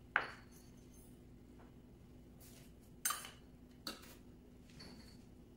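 A few light clinks and knocks of small metal kitchen items being handled and set down: a sharp one just at the start, another about three seconds in followed by a smaller one, over a faint steady hum.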